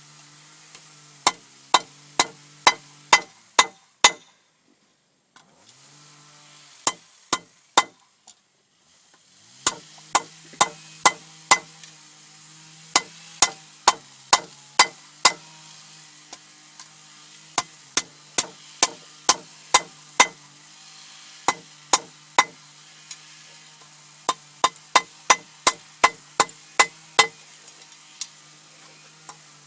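Hand hammer striking hot iron on an anvil, drawing out the point of a bodkin arrowhead: runs of sharp metal strikes, about two a second, with short pauses between the runs. A steady low hum with a faint hiss runs underneath and drops out briefly twice.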